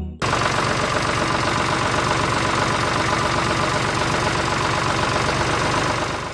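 Small engine running steadily at an even speed, with a fast regular firing beat. It cuts in abruptly just after the start.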